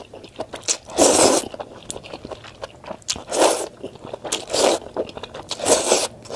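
Potato-starch noodles being slurped up from soup: about four loud slurps a second or so apart, with small wet chewing clicks between them.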